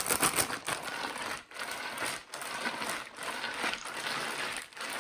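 Ice cubes rattling and a large plastic zip-top bag crinkling as the bagged ice cream mix is squished and mixed with salted ice, in a run of strokes with short pauses about every second.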